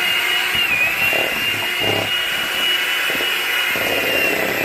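Electric hand mixer running with a steady high motor whine, its beaters working through firm, not-yet-soft butter and sugar in a stainless steel bowl. The whine dips briefly about a second in and again near the end as the beaters bog down, with knocking from the beaters in the bowl underneath.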